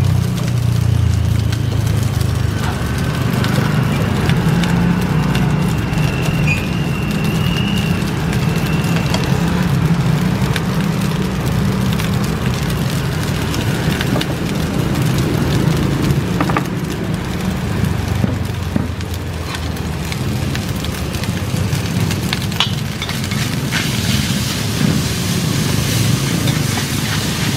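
Gas wok burner running with a steady low rush under frying rice and noodles. A metal spatula knocks and scrapes against the iron wok now and then, more often near the end as the rice is stirred.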